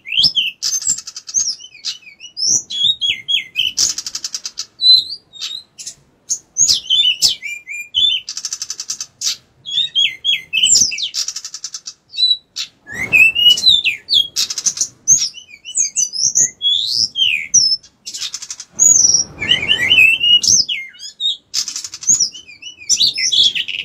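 Male pied bushchat (decu) singing actively in a fast, varied run of whistled notes, slurs and quick trills with short breaks. Two brief bursts of rougher noise come in about halfway and about three quarters through.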